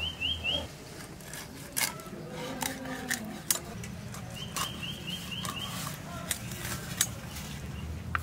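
A hilsa being cut into steaks on a boti, an upright curved blade: scraping through scales and flesh, with a few sharp knocks and clicks as the blade bites. A small bird chirps in two quick runs of short rising notes, at the start and again about halfway through.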